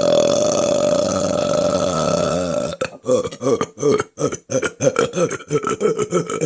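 A woman's long, drawn-out belch lasting about three seconds, then a rapid run of short choppy burps, about four a second.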